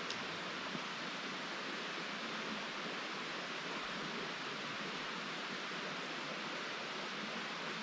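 Steady rushing of a woodland creek, an even, unbroken wash of water noise.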